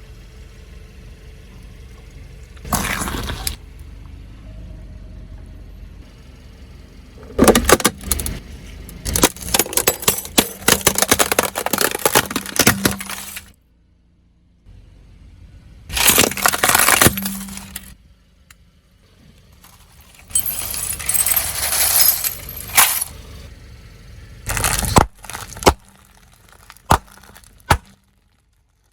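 Brittle objects cracking and crunching under a car tyre as it rolls over them, in several separate bursts a few seconds long with a few single snaps near the end.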